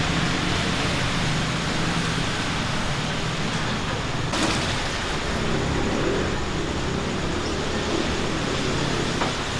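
Steady street ambience of road traffic, an even noise with a low rumble of passing vehicles, and a brief knock about four seconds in.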